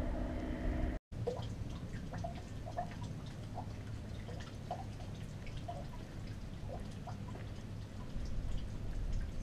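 Water dripping into a stone washhouse trough: irregular short plinks and plops, a few a second, over a low steady background. It begins just after an abrupt cut from a steady engine-like hum in the first second.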